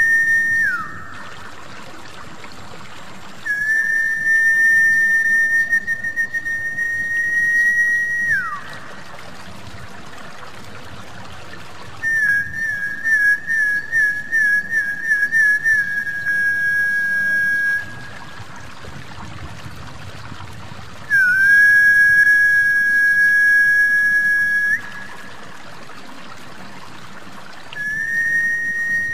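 A snakehead-luring whistle call: long, high whistled notes, each held for several seconds with a few seconds' pause between. One note warbles rapidly at its start, and another drops in pitch as it ends. Steady trickling water runs underneath.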